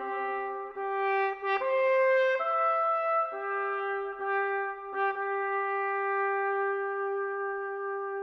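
Background music: a slow solo brass melody of a few held notes, settling about three seconds in on one long sustained note.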